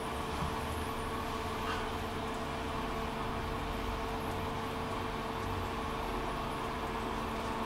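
Steady hum of an underground metro station, with ventilation or machinery holding a few constant tones over an even hiss and no train moving. A faint short squeak rises briefly about two seconds in.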